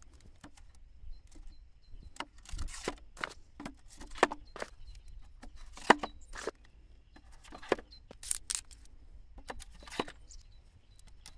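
Firework canister shells being dropped by hand into the plastic mortar tubes of a wooden rack: a series of irregular hollow knocks and clatters, the loudest about six seconds in.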